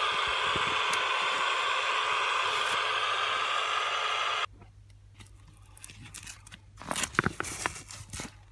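Steady hiss that cuts off suddenly a little past halfway, followed by a few light clicks and scrapes of handling.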